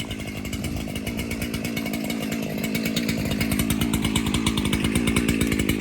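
Two-stroke chainsaw engine running steadily without revving: a fast, even pulse that grows a little louder.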